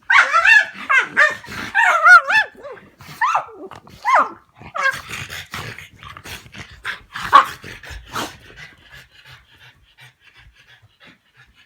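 Two dogs, a Staffordshire bull terrier and a French bulldog–pug mix, vocalising as they play: a run of high, wavering whines and yelps, loudest in the first couple of seconds. The calls come in bouts and fade to faint short noises near the end.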